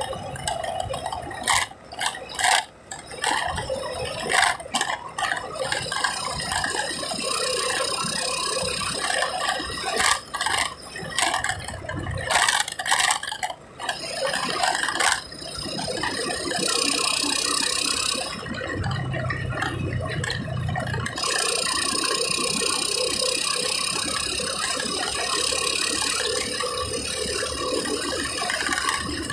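Rattling and knocking inside a moving car's cabin over steady road and engine noise; the knocks come thick and sharp for about the first fifteen seconds, then it settles into a steadier rushing drive noise.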